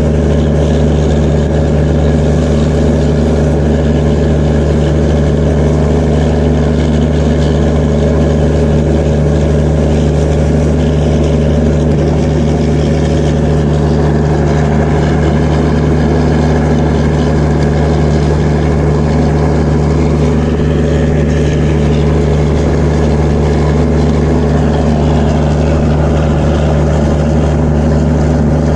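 Diesel generator sets in an Indian Railways train power car (generator van) running at constant speed: a loud, unchanging engine drone with a steady hum.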